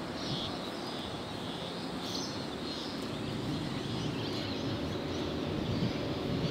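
Outdoor ambience: birds chirping now and then over a steady background noise.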